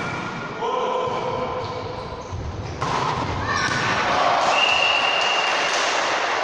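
A ball thudding on a hard indoor court, with players' voices calling out, echoing in a large sports hall.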